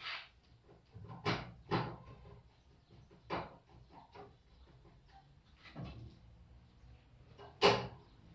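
Washing machine parts being handled and fitted during reassembly: a series of separate knocks and clatters, the loudest near the end.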